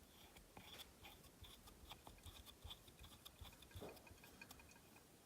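Near silence with faint, irregular light clicks of a sensor being fitted by hand into a fuel filter housing.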